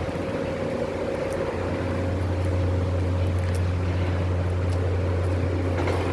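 Steady low engine drone with a fainter constant higher hum above it.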